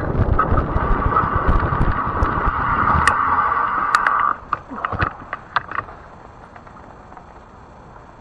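Fat-tire e-bike riding: wind buffeting the microphone over a steady hum from the bike, which stops about four seconds in as the bike comes to a halt. A few clicks and knocks follow, then only faint background hiss.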